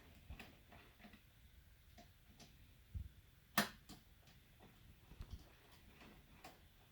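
Scattered light clicks and taps of small brine line float control parts being handled, with a low knock about three seconds in and a sharper click just after.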